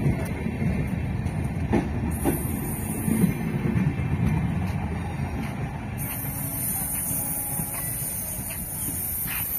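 Passenger train coaches rolling past on the rails as the train pulls out, a steady low rumble of wheels with a few sharp clicks.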